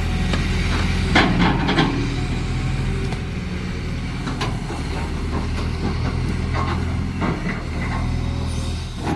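Caterpillar excavator's diesel engine running steadily while digging, its pitch shifting slightly with the work, with a few short clanks and scrapes from the digging, a cluster of them about a second in.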